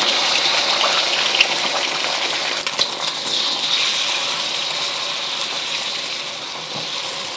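Beaten eggs sizzling in hot oil in a wok, the sizzle slowly dying down as the egg sets. A few light clicks of utensils against the wok.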